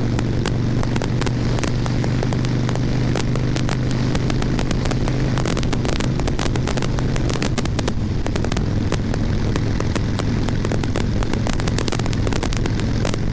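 Harley-Davidson Sportster Nightster's V-twin engine running steadily at road speed under heavy wind noise on a helmet-mounted microphone. Frequent sharp crackling pops come from the microphone throughout.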